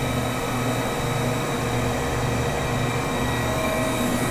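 Powered-up Okuma & Howa Millac 511V vertical machining center standing idle with its auxiliary units, such as the spindle oil chiller, running. It makes a steady machine hum with several steady tones and a low throb that swells and fades about once a second.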